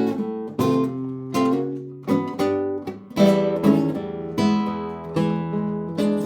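Acoustic guitar strummed, chords struck about twice a second and left ringing, with no singing.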